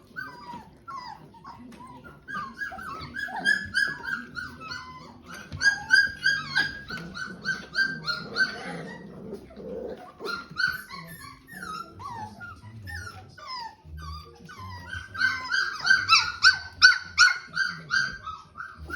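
A dog whining and yelping in rapid runs of short, high-pitched cries, several a second, louder in bursts a few times.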